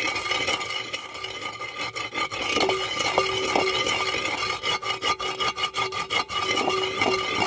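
Roasted cumin seeds and black peppercorns being ground to powder by hand, rubbed with repeated, uneven scraping strokes.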